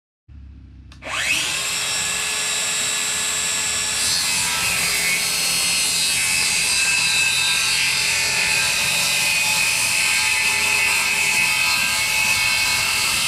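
Electric power saw spinning up with a rising whine about a second in, then running steadily as it cuts through a scrap board.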